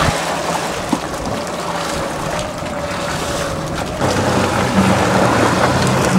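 Jet ski engine running with water churning and wind buffeting the microphone. From about five seconds in, a steady low engine drone comes through as the craft moves off across the water.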